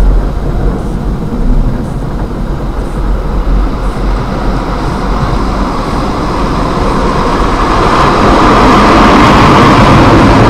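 Automatic car wash heard from inside the car: water spraying and washing over the windscreen with a steady rush and a low rumble, growing louder about eight seconds in.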